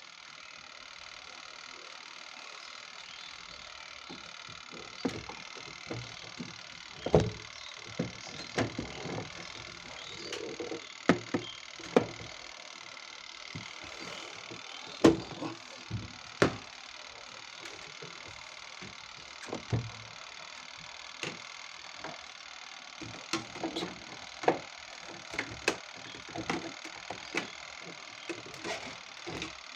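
Irregular clicks and knocks of hand tools and plastic parts as a semi-automatic washing machine is taken apart, over a steady faint hiss.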